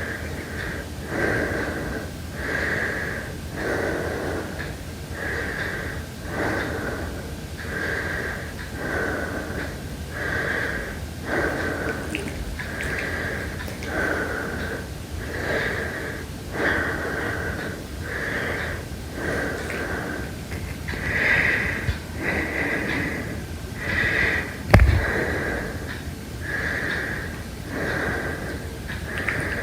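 Heavy breathing, slow and regular, one breath sound about every second and a quarter. A single sharp knock about 25 seconds in.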